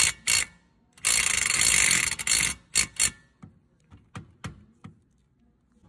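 Impact wrench on a long socket extension hammering at a mower wheel's centre hub bolt: two short bursts, then one long burst of rapid hammering lasting about a second and a half, then three quick blips, with faint clicks after.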